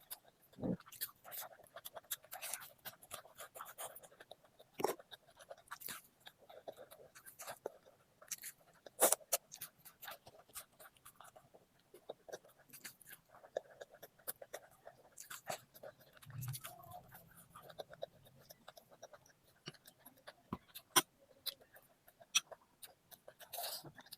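Close-up eating sounds from a person chewing a meal: irregular lip smacks and small wet mouth clicks, with a brief low hum a little past the middle.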